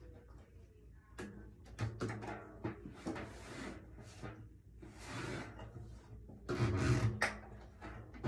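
Drum hardware being handled and adjusted: irregular scrapes, clicks and knocks as a drum's legs are reset to stop it sitting crooked, loudest about two-thirds of the way in.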